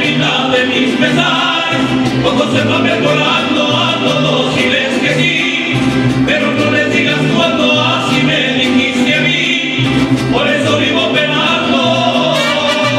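Live mariachi band playing, with violins, guitars and a guitarrón laying down a steady bass pulse under voices singing together. Trumpets come in near the end.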